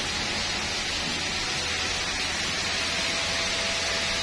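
Hot oil sizzling in a large wok as chopped aromatics fry: a steady, even hiss with a faint low hum underneath.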